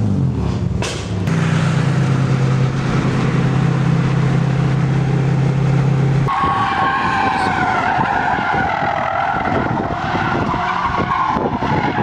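A car engine holding a steady note. About six seconds in, tyres start squealing, a wavering screech that lasts to the end as a sedan slides around in a parking-lot drift.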